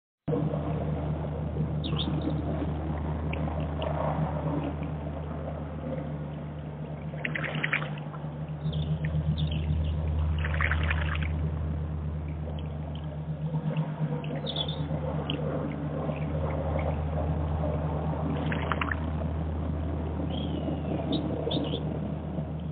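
Water trickling and splashing steadily into a garden pond, over a constant low hum. There are a few brief louder splashy rushes partway through.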